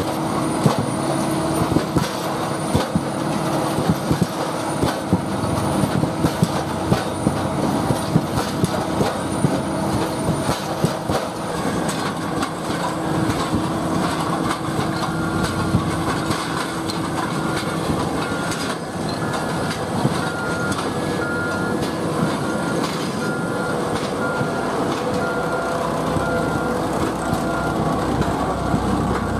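Heavy diesel road-building machinery running over a crushed-stone base: steady engine noise with the crunch and clatter of loose stone. About halfway through, a reversing alarm starts beeping about once a second.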